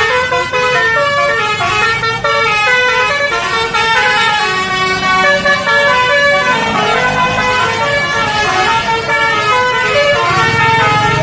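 Tour bus's telolet (basuri) musical air horn playing a fast tune of stepped notes, one note after another without a break, with engine rumble underneath that gets stronger near the end.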